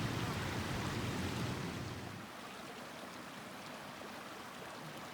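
Steady rushing of running water, a mountain stream, heard as an even hiss. A louder low rumble in the first two seconds drops away about two seconds in.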